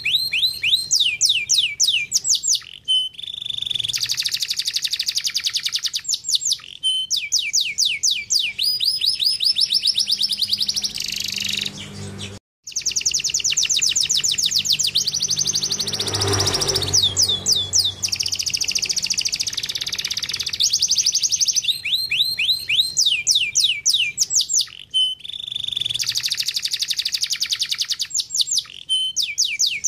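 Domestic canary singing long runs of fast repeated trills. Each run is a rapid series of sweeping high notes, with short pauses between phrases. The song cuts out for a moment about twelve seconds in.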